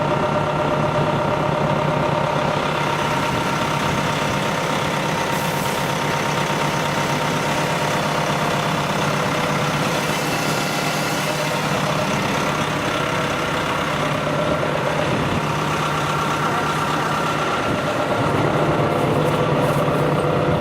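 Large vehicle engine idling steadily, a constant even hum.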